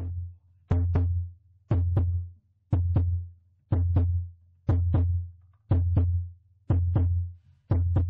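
Electronic music with a slow pulsing beat, about one a second. Each beat is a quick double click over a deep bass note.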